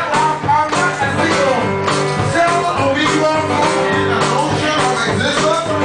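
Live rock band playing loud amplified music, with bending melodic notes over a steady drum beat.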